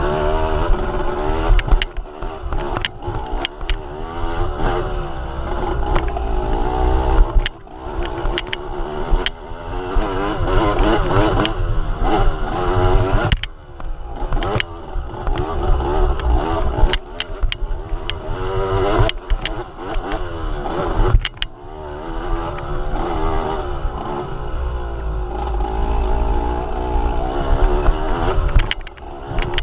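A vehicle engine running and revving up and down over and over, with frequent knocks and rattles.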